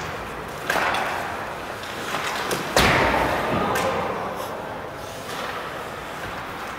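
Hard knocks against the rink boards during ice hockey play: two loud bangs about two seconds apart, the second louder, each ringing on in the arena's echo, with a smaller knock just after.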